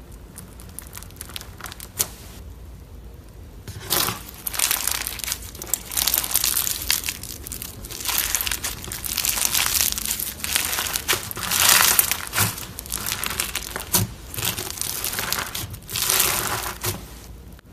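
Crunchy slime being squeezed and pressed by hand, crackling in repeated waves from about four seconds in, after a few faint clicks at the start.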